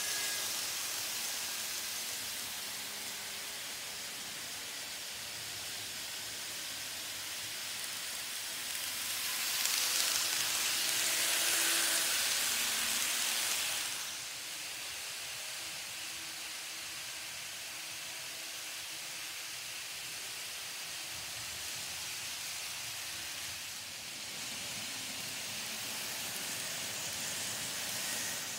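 N-scale model trains running on Kato Unitrack: a steady hiss of small wheels and motors on the rails, swelling louder for a few seconds in the middle.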